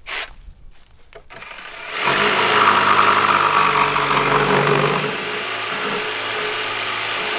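Cordless jigsaw cutting through a timber plank. It starts about two seconds in and runs steadily, a little quieter after about five seconds, with a couple of short knocks before the cut.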